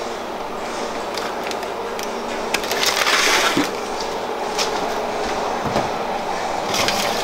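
Aluminium foil lining a baking tray crinkling as the tray is handled, lifted and carried to the oven, with scattered small knocks and a louder crinkle about three seconds in.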